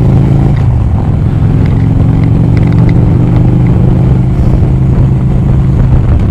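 Harley-Davidson V-twin touring motorcycle engine running under way, heard from the rider's helmet with wind rush. Its pitch drops about half a second in, then holds and slowly climbs before fading into wind noise near the end.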